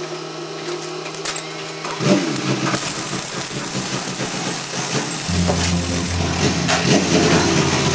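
Steady machine hum with a hiss. The sound changes about two seconds in, and a deeper hum comes in about five seconds in.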